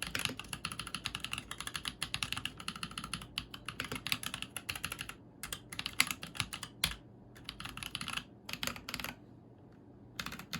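Typing on a custom 60% mechanical keyboard with Holy Panda tactile switches and GMK doubleshot ABS keycaps: a rapid, continuous run of key clacks for about five seconds, then shorter bursts broken by pauses, trailing off near the end.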